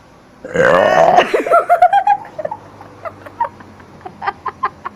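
A loud, deliberate burp about half a second in, then a boy laughing hard in quick rising bursts that break up into scattered giggles.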